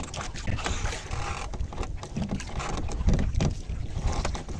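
Wind buffeting the microphone over waves slapping and sloshing against a fishing boat on a choppy sea, a steady rumbling hiss that swells and eases.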